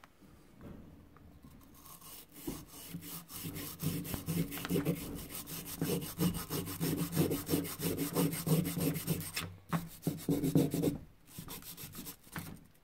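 Small brush scrubbing a rusty steel implement wrench in rapid back-and-forth strokes, knocking off the loose black flaky residue left after electrolysis rust removal. The scrubbing starts about two seconds in, breaks off briefly near ten seconds and dies down about eleven seconds in.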